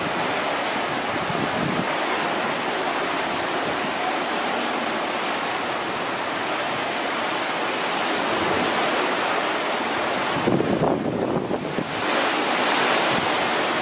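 Rough sea surf breaking against a rocky shore, a steady rushing noise, with wind buffeting the microphone in low gusts, strongest about ten and a half seconds in.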